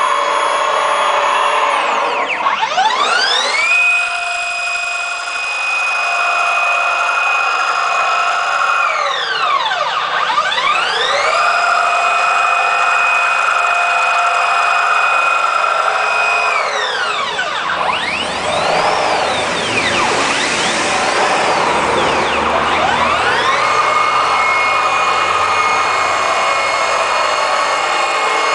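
Stepper motors of a home-built CNC machine whining through their moves: the tone holds steady for several seconds on long runs, then sweeps down and back up as the axes slow, change direction and speed up again. A run of shorter, quicker moves comes about two-thirds of the way through.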